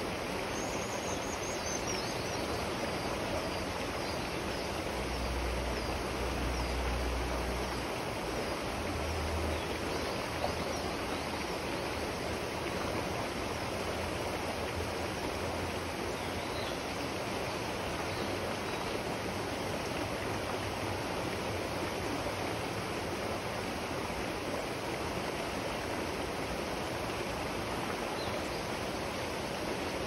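River water rushing steadily over rocks. Faint high bird chirps come through a few times, mostly in the first few seconds. A low rumble is heard for a few seconds around the middle of the first third.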